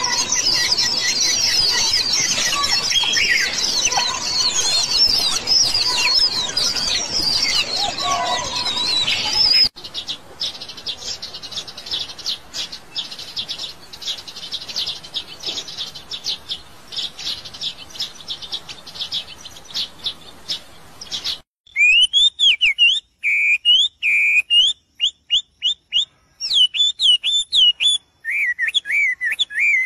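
Birds calling, in three abrupt sections: first a loud, dense chorus of many small birds chirping; about ten seconds in a fainter stretch of rapid chirps; and from about two-thirds of the way through, a single bird singing clear whistled phrases, repeated with short pauses between them.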